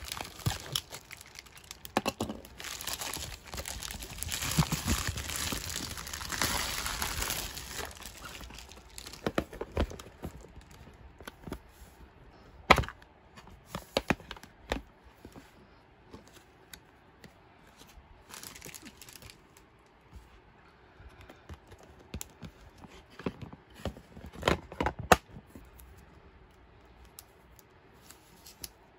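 Plastic mailer bag and its wrapping crinkling and tearing as a package is opened, dense for the first eight seconds or so. After that, a few sharp clicks and taps from a clear plastic photocard case being opened and sleeved cards being handled.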